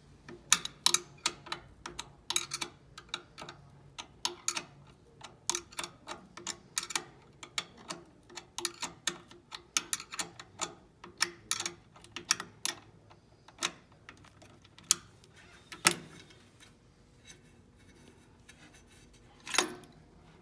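Metal wrench turning the bolt that holds an encoder bracket on a longarm quilting machine's carriage, loosening it: a run of sharp metal clicks, two or three a second, thinning out about two thirds of the way through to a few separate clicks as the bracket is handled.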